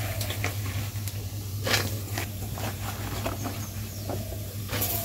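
A few knocks and clatters of cooking utensils, the loudest about a second and a half in and near the end, over a steady low hum.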